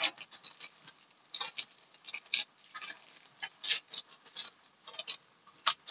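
Thin plastic snack wrapper crinkling as it is handled and pulled at by hand, in short irregular crackles.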